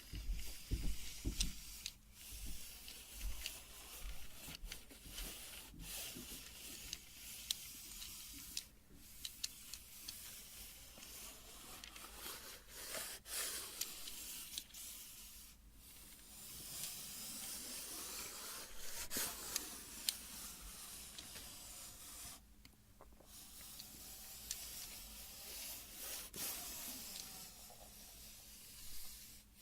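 Tape measure being handled: a scratchy rubbing and hissing sound with scattered light clicks and taps.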